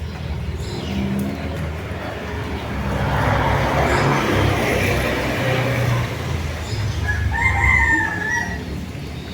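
A rooster crowing once, about seven seconds in, a drawn-out pitched call lasting about a second and a half. Underneath is a steady low rumble, and a broad rushing noise swells and fades in the middle.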